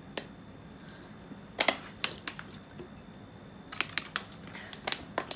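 Thin plastic water bottles crinkling and crackling as they are handled and drunk from, in a scatter of sharp clicks.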